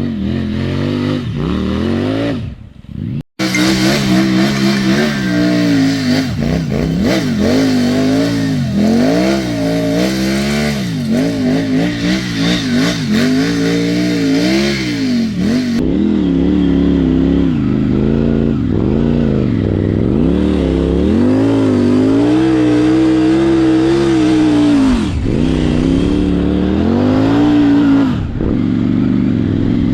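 Triumph Tiger 900 motorcycle's three-cylinder engine revving hard while the bike labours in sand. Its pitch rises and falls again and again, with a brief drop-out about three seconds in.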